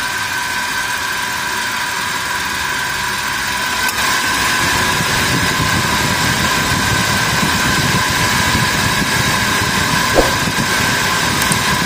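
Car engine idling steadily under the open bonnet, with a steady high hum over the running noise and a slight rise in level about four seconds in. The electric radiator fan stays off because the AC is switched off. A brief click comes near the end.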